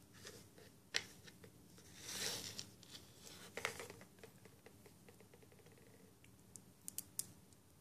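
Small plastic building-block pieces of a Tenkai Knights figure being picked up off a table and fitted together by hand: a few sharp clicks, the loudest about a second in, and a short scraping rustle about two seconds in, with lighter ticks near the end.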